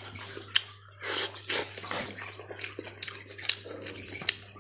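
A knife cutting into a large cooked joint of meat on a wooden board, its blade clicking against the board several times, with two short rustling bursts about a second in.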